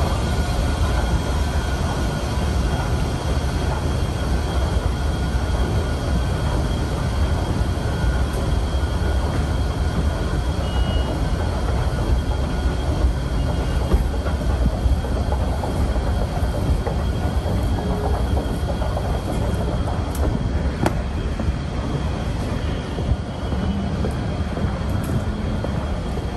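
Long subway-station escalator running: a steady low mechanical rumble with a faint, even whine on top, unchanging throughout.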